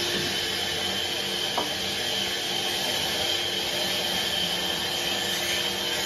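Sawmill band saw running steadily with a constant whine. A light knock comes about one and a half seconds in.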